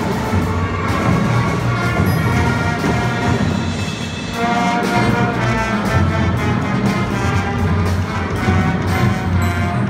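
High school marching band playing, brass sustaining chords over drum hits. There is a brief lull about four seconds in, then the full band comes back in louder.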